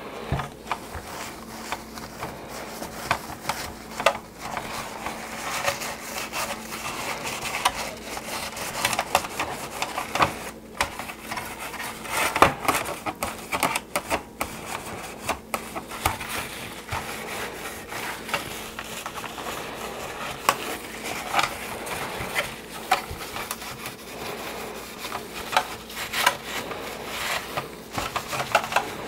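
A rag rubbing baby oil over the plastic of a vintage G.I. Joe Skystriker toy jet, a steady scrubbing with many small clicks and knocks as the hard plastic shifts and taps on the bench.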